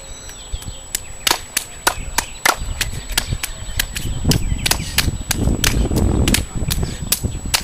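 Two people slapping and clapping their hands together in a quick hand-clap routine: a run of sharp claps, two or three a second, with a low rumble underneath from about four seconds in.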